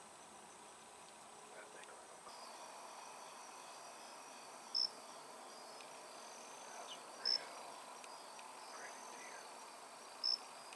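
Crickets and other insects trilling steadily in the woods at dusk, starting about two seconds in. Three loud, short, high chirps stand out, about two and a half seconds apart.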